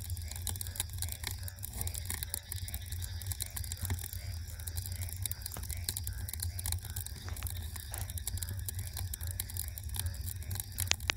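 Wood fire crackling: a dense run of small snaps over a steady low rumble, with a couple of sharper pops near the end.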